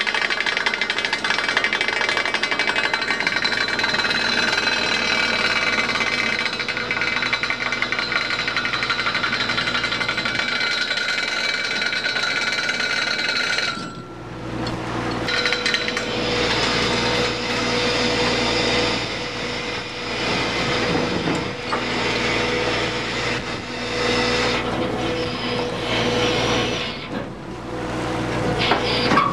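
Trawl chains and gear clattering over a trawler's steel stern as the net is shot away, a dense metallic rattle over a steady mechanical whine. About halfway through this cuts off and gives way to the steady hum of the boat's engine, which rises and falls in level.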